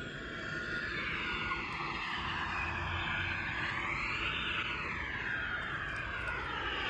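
Steady rushing noise of a passing vehicle, its tone sweeping slowly up and back down about halfway through.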